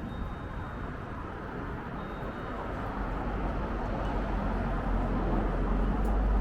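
Street traffic noise, with a passing vehicle's deep rumble growing louder toward the end.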